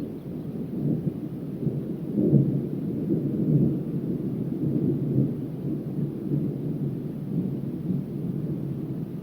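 A low rumbling noise that swells and eases, loudest a couple of seconds in.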